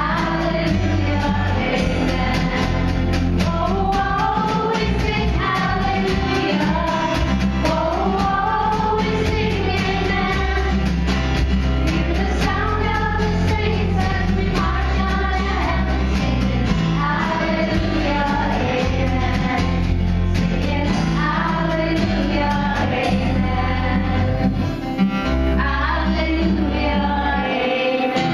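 Church worship music: voices singing a song over instrumental accompaniment with a steady bass line.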